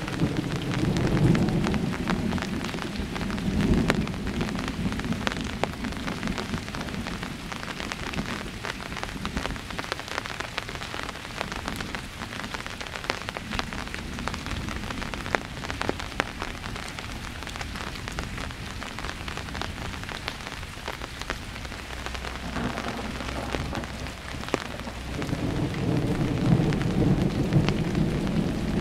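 Steady rain falling with pattering drops, and thunder rumbling in the first few seconds and again building near the end.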